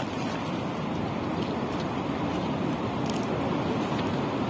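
Steady rush of surf and wind on a stony beach, with a few sharp clicks of pebbles and coral stones knocking together as sand is scooped up by hand.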